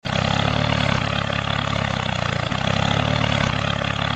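Engine of a homemade miniature tractor running steadily with a low, even, rapid putter.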